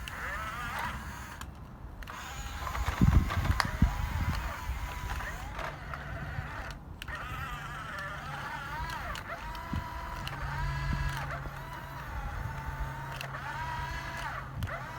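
Small electric motors of a radio-controlled excavator whining in short runs, each rising, holding a steady pitch and dropping away. A few knocks come about three to four seconds in.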